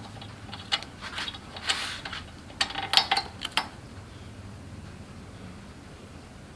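A few short, irregular clicks and scrapes of a hand tool and metal parts as the spark plug is loosened and taken out of a Kohler cast-iron engine's cylinder head, over the first three and a half seconds.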